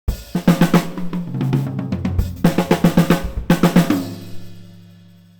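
Sampled acoustic drum kit from Superior Drummer 3 playing a busy pattern of fast hits. It ends on a final hit that leaves a low drum and a cymbal ringing out, fading away over the last second or so.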